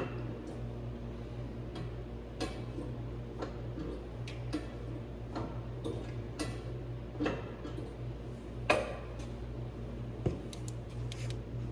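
Irregular metallic clicks and clinks, roughly one a second, from hand tools on the drivetrain as the engine is barred over by hand to line up the drive coupler's bolt holes, over a steady low hum.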